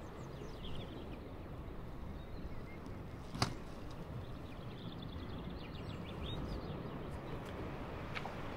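Outdoor ambience: a steady low rumble of wind with small birds chirping briefly now and then, and one sharp tap about a third of the way in.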